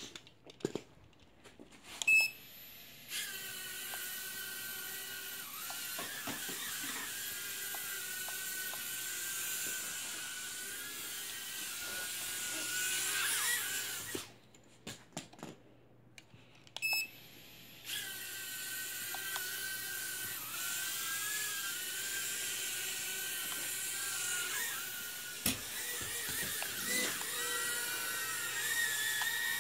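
Tiny toy quadcopter's electric motors and propellers whining at a high pitch that wavers up and down as it flies. The whine starts about three seconds in after a couple of clicks, cuts out about fourteen seconds in with a few light knocks, and spins back up a few seconds later.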